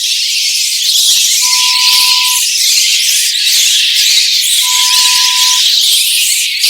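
A crowd of bats squeaking and chittering in a dense, high-pitched chatter. A steady one-pitch beep sounds twice over it, each lasting about a second.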